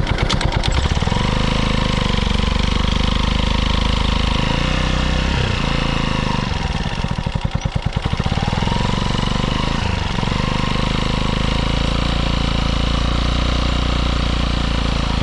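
Kawasaki Eliminator 125's single-cylinder four-stroke exhaust, picked up by a microphone just behind the muffler outlet, running steadily under way. Its note dips and recovers briefly about five and ten seconds in.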